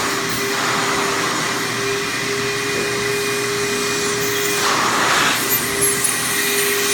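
Vortex Vacuums Super Bulldog vacuum running steadily with a constant whine over rushing air; about five seconds in the rush of air grows louder for about a second.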